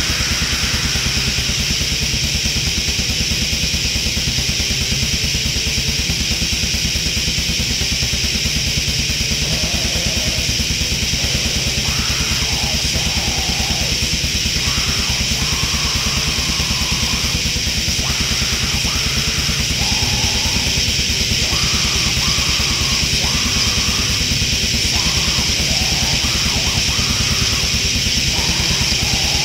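Heavy metal song: distorted electric guitars over fast, driving drums, loud and unbroken, with a higher melodic line coming and going from about ten seconds in.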